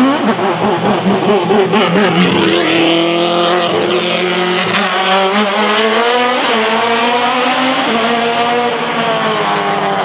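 Tatuus Master single-seater race car accelerating hard away from the start, its high-revving engine note climbing in pitch again and again as it shifts up through the gears.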